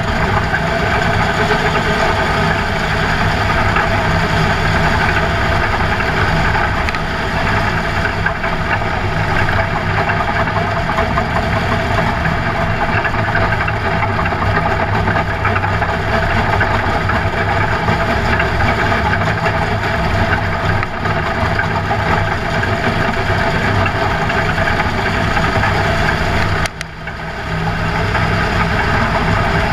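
Race car engine heard from inside the cockpit, running hard and steady at racing speed, with road and wind noise. About three seconds before the end the sound drops off sharply for a moment, then builds back up.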